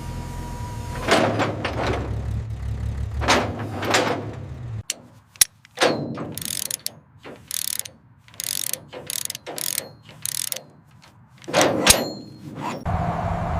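Workshop mechanical sounds: a series of short, sharp clicks and noisy bursts, a few at first over a low hum, which stops about five seconds in, then more spaced out on their own. A new steady hum starts near the end.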